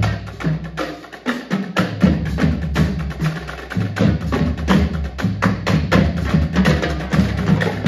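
Marching drumline playing: snare drum, tenor drums and pitched marching bass drums in fast, dense strokes over pulsing low bass-drum notes, thinning briefly about a second in.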